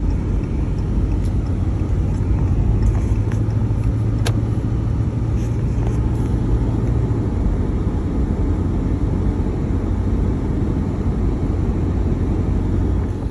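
Car-hauling truck on the move, a steady low engine and road rumble. A low hum fades about halfway through, and there is a single sharp click a few seconds in.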